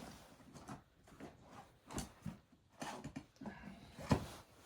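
Scattered clicks and knocks of hands working at the push-on wire connectors on a treadmill's power switch, trying to pull them off the terminals; the sharpest knock comes about four seconds in.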